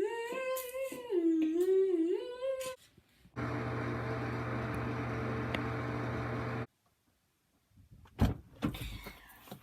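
A drawn-out, wavering hummed or whined voice for about three seconds, then a steady mechanical hum that cuts off suddenly after about three seconds, and a thump near the end.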